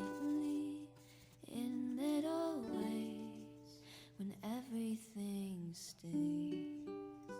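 Soft background song: plucked ukulele notes under a voice that holds and glides through a few notes without clear words.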